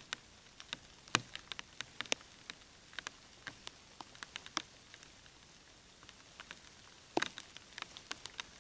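Irregular light pattering: scattered sharp ticks, uneven in loudness and spacing, over a faint steady hiss. The loudest ticks come about a second in and again about seven seconds in.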